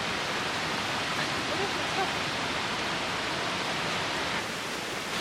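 Steady rush of a waterfall: an even, unbroken wash of falling water.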